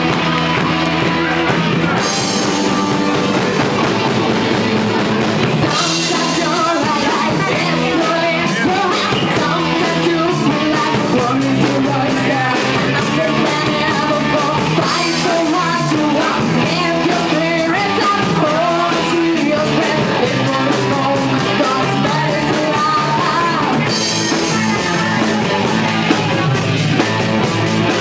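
Live rock band playing: a woman sings lead over two electric guitars, an electric bass and a drum kit.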